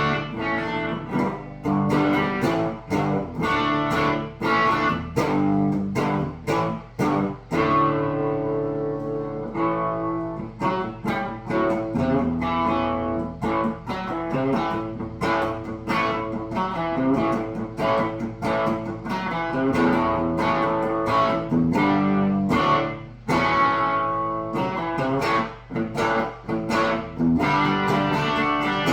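Electric guitar played through a Marshall Origin 20C all-valve combo amp with no pedals, its gain knob pulled out for the boost. It plays a continuous run of picked chords and riffs with a lightly overdriven amp tone.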